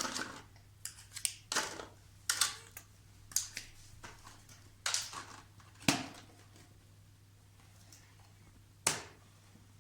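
Toy kitchen dishes and utensils being handled and set down: a string of separate light clicks and knocks, about nine in all, the sharpest about six and nine seconds in.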